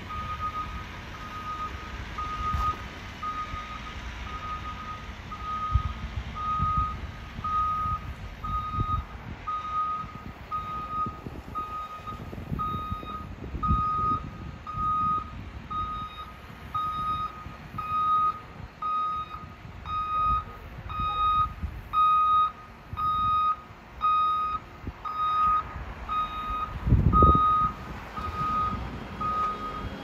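Backup alarm of a CAT 730 articulated dump truck beeping steadily at an even pace over the rumble of its diesel engine, the truck backing up to be loaded. A louder low rumble swells briefly near the end.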